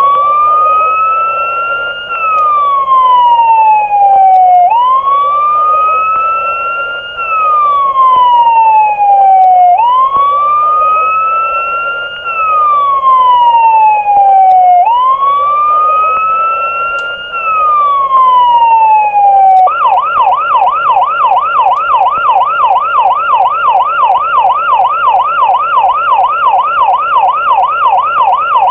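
US-style electronic police siren from a small RC siren speaker module. It starts in a wail, rising and falling about every two and a half seconds, then switches about two-thirds of the way through to a fast yelp of several sweeps a second.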